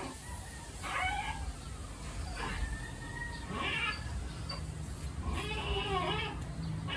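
A pet animal's high, whining calls, several short ones that fall in pitch, coming every second or two, with a longer one near the end.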